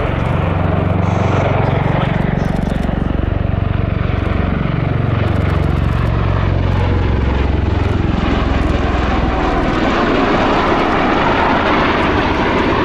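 Bell Boeing CV-22B Osprey tilt-rotor, with its two Rolls-Royce AE1107C turboshaft engines, passing low and slow with its nacelles tilted up. Its deep rotor tones slide down in pitch as it goes by, and a broader rushing engine and rotor noise grows toward the end.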